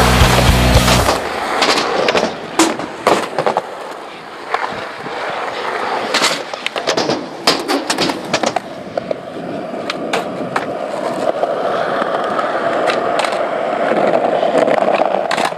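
Skateboard on skatepark concrete: wheels rolling, with a run of sharp clacks as the board strikes the ground. The wheel noise grows into a steadier, louder rumble over the last several seconds.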